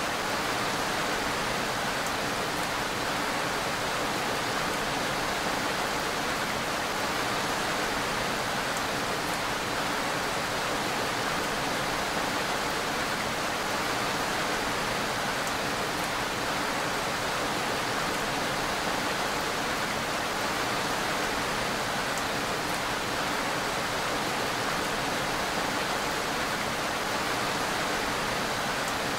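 Rain falling steadily: an even hiss that holds the same level throughout, with faint scattered ticks of individual drops.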